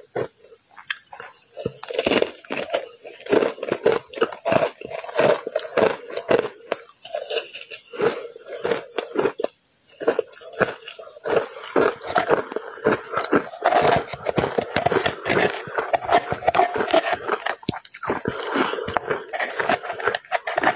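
Close-up biting and chewing of powdery frozen matcha ice: a dense run of quick, soft crunches, with a short pause about nine and a half seconds in.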